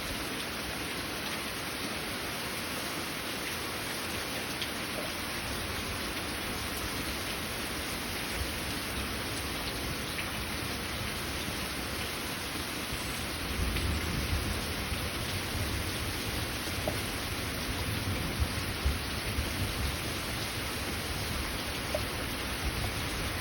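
Heavy rain falling steadily in a thunderstorm; a little over halfway through, a low rumble of thunder comes in and carries on under the rain.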